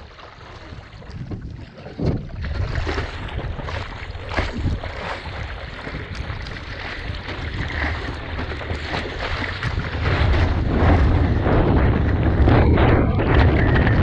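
Seawater splashing and sloshing around a surfboard as a surfer paddles into a big wave, with wind buffeting the microphone. About ten seconds in the water noise swells into a louder, deeper rush as the board catches the wave and drops down its face.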